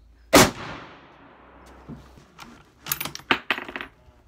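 A single rifle shot from a Franchi Horizon Varmint bolt-action rifle in .308 Win: a sharp crack with a long echoing tail. About two and a half seconds later comes a quick run of metallic clicks as the bolt is worked.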